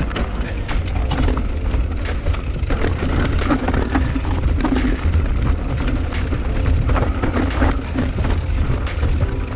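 Enduro dirt bike running while riding off-road, under a heavy low rumble, with frequent sharp knocks throughout.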